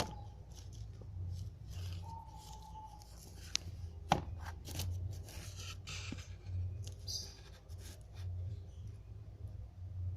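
Scattered rubbing and rustling handling sounds with two sharp clicks near the middle, over a low pulsing hum.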